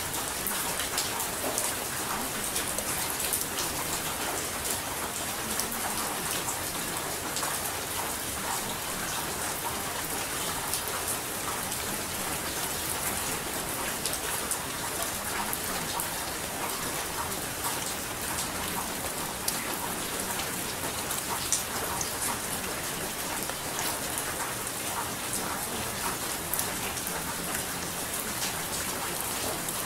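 A steady rain recording: an even hiss, strongest in the high end, scattered with many small ticks of drops.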